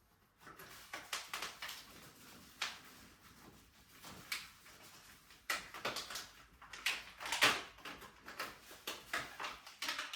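Irregular clicks, knocks and rustling as mountain-bike parts are handled and taken off the bike, with the loudest knocks in the second half.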